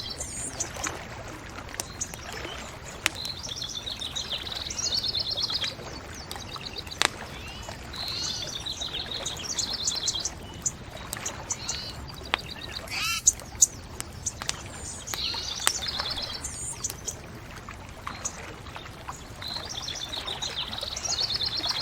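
Songbirds singing short, rapid trilling phrases that repeat every few seconds, over a crackling bonfire with scattered sharp pops and a steady hiss.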